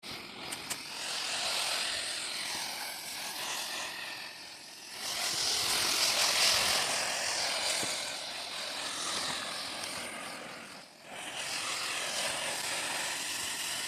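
Pressure washer spraying soft-wash soap solution through a J-rod onto shed siding: a steady hiss of spray that eases off briefly about five seconds in and again near eleven seconds.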